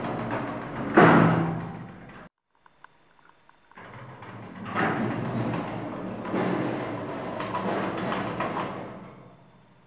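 Elevator's sliding metal doors closing, meeting with a loud clunk about a second in. After a short gap they slide open again with a rattling rumble and a knock, fading out near the end.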